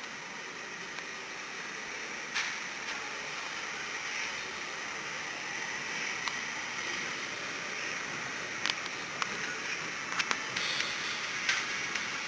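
Replica of the Adler, Germany's first steam locomotive, rolling slowly past: a steady steam hiss that slowly grows louder, with several sharp clicks from the running gear on the track.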